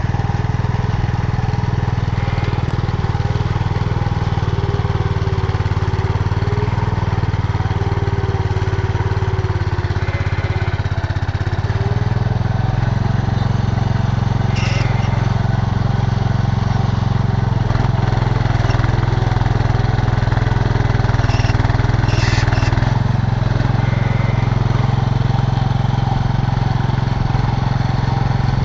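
1967 Cub Cadet 122 garden tractor's single-cylinder engine running steadily while it works a front loader. Its pitch steps up about 12 seconds in and again near 23 seconds. A few short clanks come in the middle as the bucket digs into the sand.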